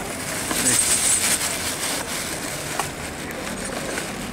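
Rustling and clicking of hands rummaging through a cloth shoulder bag close to the microphone, over a steady hiss.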